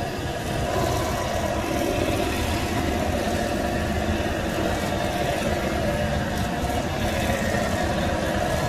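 An engine running steadily at idle, an even mechanical sound that holds at one level throughout.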